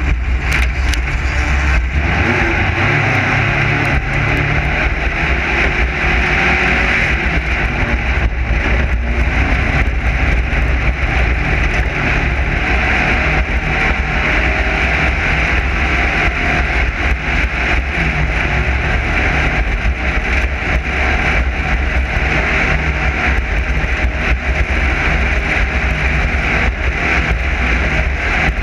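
Class 9 desert race car's engine running steadily, with a constant loud rushing noise over it.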